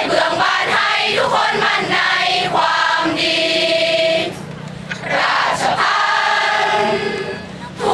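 A large crowd of students in a cheering stand singing a cheer song together in unison, in sung phrases broken by two short pauses.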